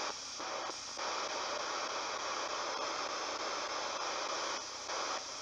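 Ghost box (spirit box) radio scanning through stations: a steady hiss of static, broken by short dips twice near the start and twice near the end.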